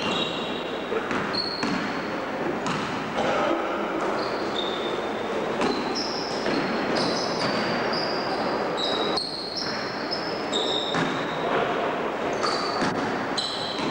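Basketball being played in an echoing gym: the ball bouncing, players' running footsteps, and many short high sneaker squeaks on the court floor.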